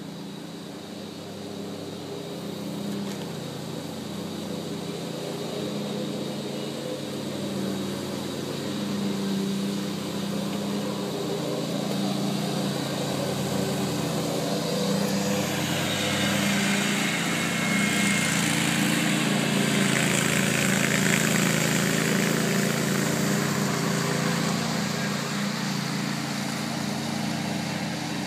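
Riding lawn mower engine running steadily. It gets louder through the first two-thirds, with a hiss that swells in the middle, and eases slightly near the end.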